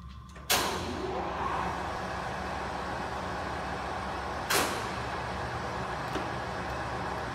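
Kingston heavy-duty gap-bed engine lathe starting up with a sharp clunk about half a second in, then running with a steady mechanical noise. A second sharp clunk comes about four seconds later.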